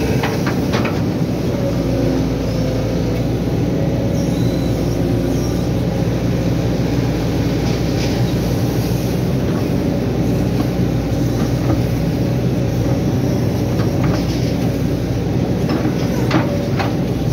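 Hydraulic excavator's diesel engine running steadily under load as the machine digs mud out of a ditch and swings it onto the bank. A few short knocks come through, about half a second in, midway and near the end.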